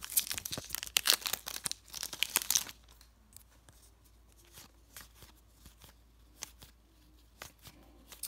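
Foil trading card pack wrapper being torn open and crinkled for the first two to three seconds. Then comes a quieter stretch of faint, scattered ticks as the cards are slid out and flipped through.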